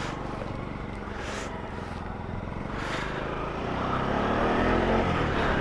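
Motor vehicle engine and road noise, with an engine's pitch rising and the sound growing louder over the last couple of seconds as it speeds up.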